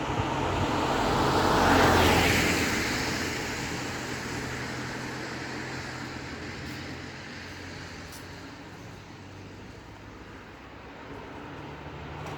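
A road vehicle passing by, loudest about two seconds in and then fading away slowly, over a steady low hum.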